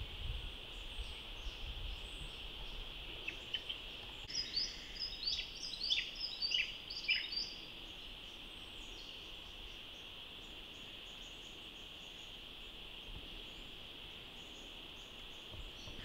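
A chorus of frogs calling in one steady high-pitched drone, with a bird's run of quick chirping notes, several dropping in pitch, over it between about three and seven seconds in.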